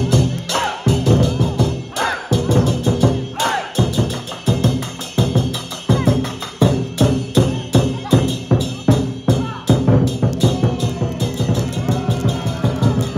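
Lion dance percussion: a large drum beaten in a fast, driving rhythm with crashing cymbals on the beats.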